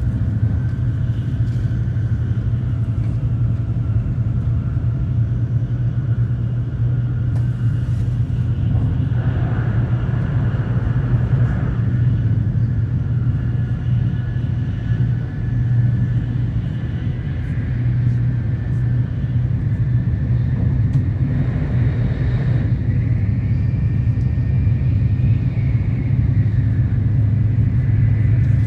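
Tokaido Shinkansen Nozomi train running, heard inside the passenger cabin as a steady low rumble, with two brief swells of rushing noise about ten and twenty-two seconds in.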